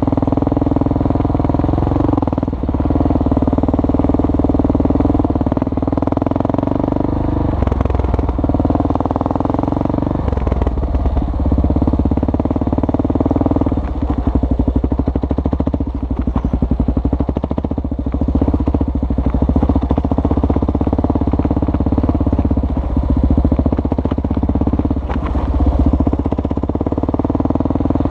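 Kawasaki KLR650's single-cylinder four-stroke engine running under way, its revs rising and falling several times, with scattered knocks and clatter.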